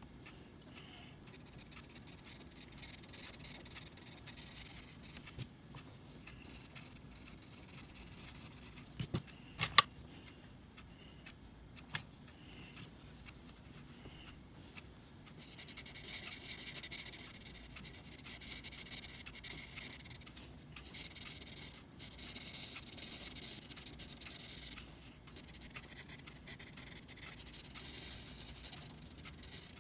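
Coloured pencil scratching across a colouring-book page in steady strokes, denser in the second half. A few sharp taps come about a third of the way in.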